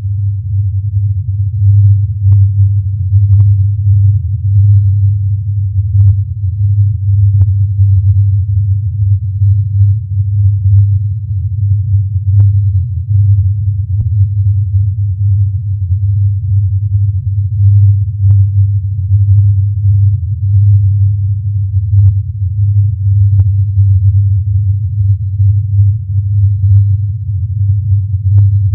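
Low, steady droning hum, a recording presented as the Taos Hum, the persistent low-frequency sound said to be like a diesel engine idling far away. Faint short clicks come every second or two.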